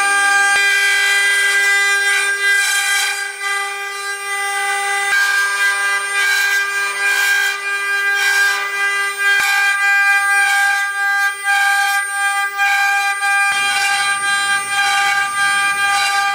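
Multi-head CNC wood carving router running, its router spindles giving a steady high-pitched whine while the bits carve spiral balusters from wooden blanks turning in the rotary axes, with repeated surges of cutting noise.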